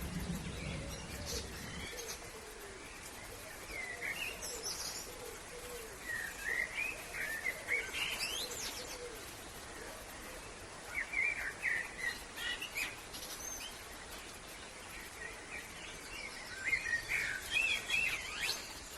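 Wild birds chirping and singing in several short bursts over a steady outdoor hiss. A low rumble dies away in the first couple of seconds.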